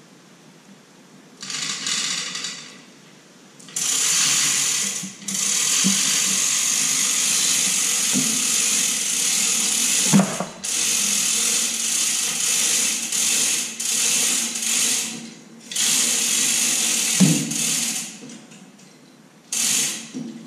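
A power tool running in repeated runs of a few seconds, stopping and starting, as bolts are driven into the sprocket's push-off holes to force the drive sprocket off the skid steer's drive motor hub. There are a few sharp metal clanks in between.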